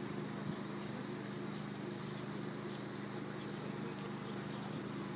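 A steady low mechanical hum made of several constant tones over a faint outdoor background.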